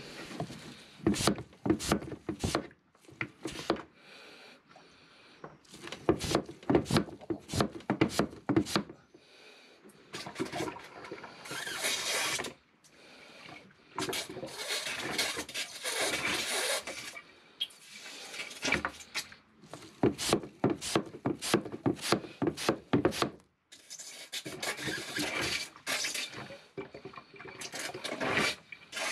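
Hand-operated vacuum oil extractor drawing oily bilge water up its hose into the canister: repeated short pump strokes with longer stretches of liquid slurping through the hose.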